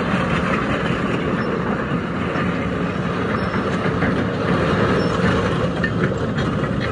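Hitachi EX200-3 crawler excavator's diesel engine running steadily under hydraulic load as the machine swings and its tracks turn on gravel, with a few light clanks near the end.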